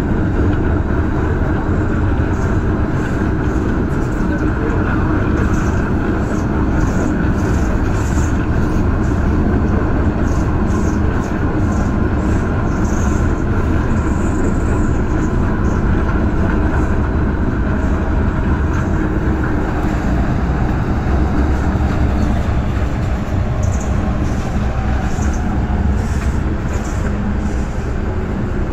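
MTR M-train electric multiple unit running at speed, heard from inside the passenger car: a steady loud rumble of wheels and traction equipment with a steady hum and scattered faint high clicks. It eases slightly quieter near the end as the train pulls into a station.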